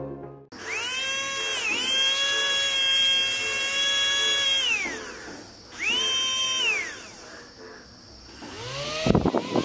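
Small brushed DC toy motor running on a single battery cell: its whine starts about half a second in, holds steady for about four seconds at normal speed, then winds down, with a second short run around six seconds in. Near the end it spins up again with a plastic propeller fitted, the whine rising and turning into a louder, fluttery buzz.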